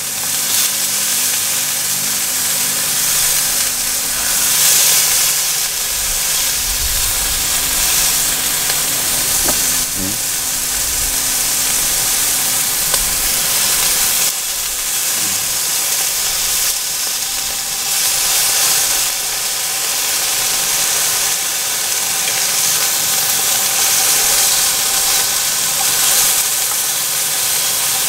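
Thin slices of meat sizzling in a frying pan over a portable gas burner, a steady hiss.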